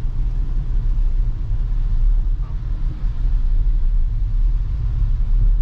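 Steady low road and tyre rumble inside an electric Tesla's cabin while driving on rain-wet road, with a faint hiss above it.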